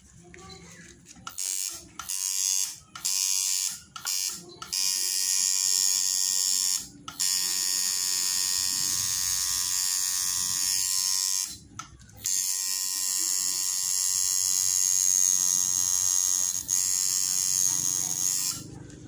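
Electric tattoo machine buzzing as it needles ink into skin: a few short bursts at first, then long steady runs broken by two brief pauses, stopping shortly before the end.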